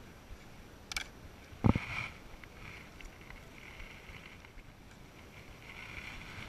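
Wooden beehive frames being handled as one is pried loose with a metal hive tool and lifted out of the box: a click about a second in, then a sharp wooden knock just under two seconds in, then scraping as the frame slides free.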